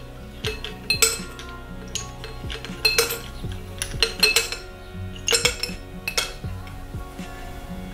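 Ice cubes tipped from a small bowl into a tall glass jar, clinking sharply against the glass and each other in an irregular run of clinks that stops about a second before the end.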